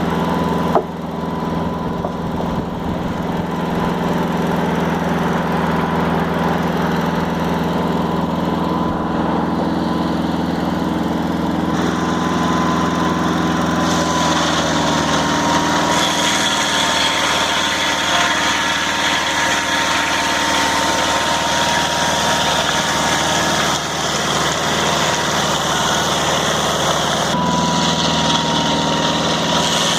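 Mobile Dimension sawmill's engine running steadily with a high whine over it. There is a brief knock about a second in, and the sound shifts a few times along the way.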